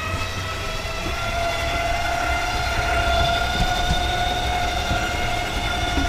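Electric motor of a motorhome's slide-out room whining steadily as the slide extends, over a low rumble.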